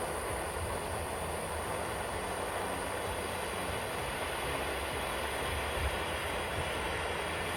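Gas brazing torch burning steadily: an even rushing noise with a low rumble underneath.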